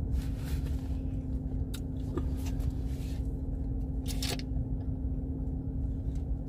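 Mouth sounds of eating: chewing, then a short sip through a drinking straw about four seconds in, with a few small clicks. Under them runs a steady low hum of a car's running engine heard inside the cabin.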